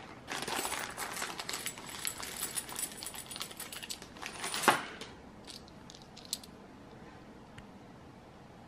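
Metal board-game coins clinking against each other as they are tipped out of a plastic bag into a hand, with the bag crinkling. One louder clack comes a little over four and a half seconds in, then only a few light clinks.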